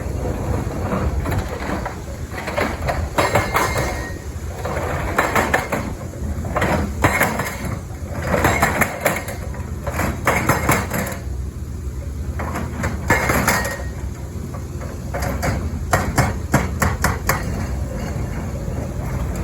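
Hydraulic breaker on a CAT 320 excavator hammering in short runs of rapid blows, a few seconds apart, over the steady running of the excavator's diesel engine.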